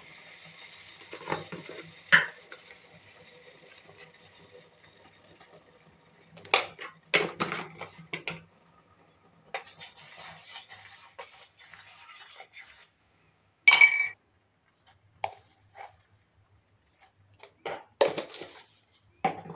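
Steady hiss from a stainless steel pot boiling on a gas stove, with a metal spoon clinking against the pot as it is stirred. One sharper, ringing clink comes about two thirds of the way through.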